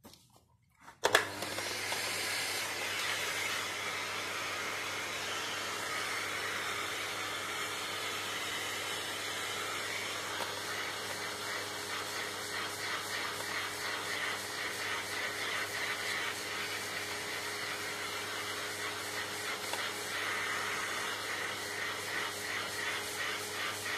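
Vacuum cleaner switched on about a second in and running steadily, a motor hum under an even rushing of air.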